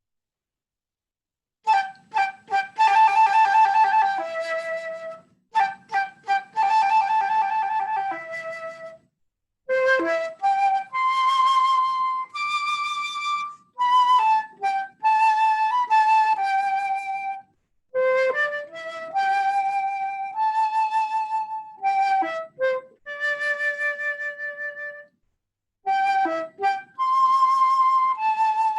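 Solo flute playing a slow melody in short phrases with brief pauses between them, some held notes wavering with vibrato. It starts after a second or two of silence.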